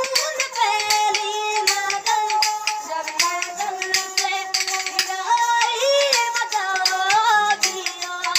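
A child sings a folk song to his own bowed stick fiddle. The melody steps and wavers along, with sharp clicks keeping time under it.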